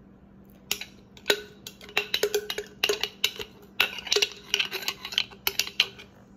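Kitchenware clinking and knocking in an irregular run of sharp clicks while cornbread batter is poured out of its container.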